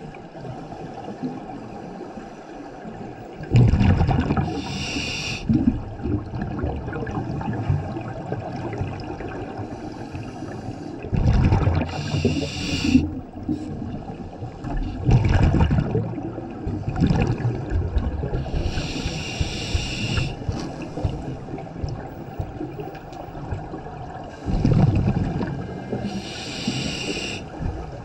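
Scuba regulator breathing heard underwater: four hissing breaths drawn through the demand valve, about seven seconds apart, alternating with low, gurgling rumbles of exhaled bubbles.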